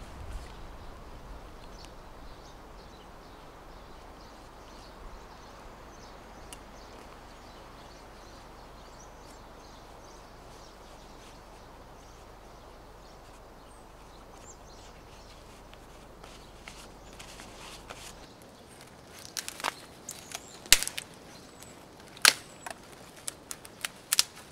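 Quiet woodland ambience with faint rustling as leather work gloves are pulled on, then, about three-quarters of the way in, a run of sharp cracks: dry twigs and dead branches snapping as they are broken out of a pile of brushwood.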